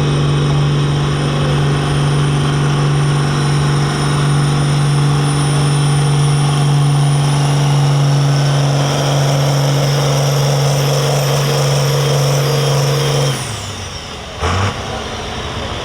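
Farm tractor's turbocharged diesel engine running wide open under heavy load while pulling a weight-transfer sled, with a high turbo whistle that climbs in pitch partway through. About 13 seconds in, the throttle is cut: the engine note drops away and the whistle winds down, followed by a brief loud burst of noise.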